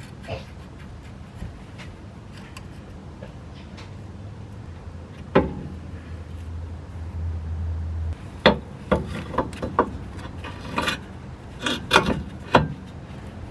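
Sharp metallic clinks and knocks of hand tools and brake hardware being handled while working on a car's rear brake caliper bracket. A few single knocks come in the first half, then a quicker cluster in the second half, over a low steady hum.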